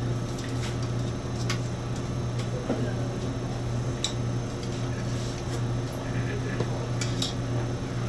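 Steady low hum of running lab equipment, with a few light metallic clicks and ticks from the small screws, hex ball driver and metal plate fitting being handled.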